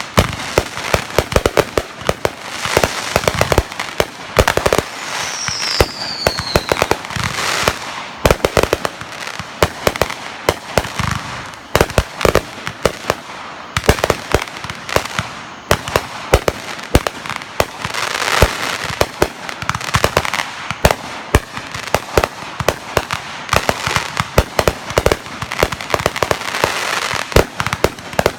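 Fireworks going off in rapid, continuous succession: dense crackling and popping with frequent louder bangs, and one brief falling whistle about five seconds in.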